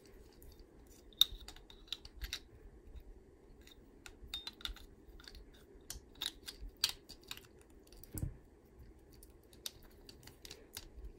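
Scattered light clicks and taps of metal armor pieces knocking against the plastic body of a Minecraft Steve action figure as they are handled and fitted on, with one sharper click about a second in.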